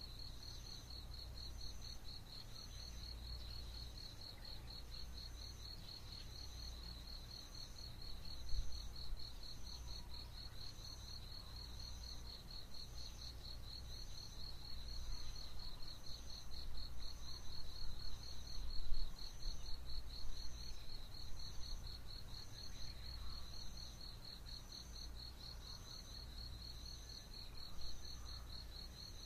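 Pre-dawn insect chorus: an insect trills steadily in a fast, pulsing chirr, with a higher chirp repeating about once a second. A low rumble underneath swells for a while in the middle.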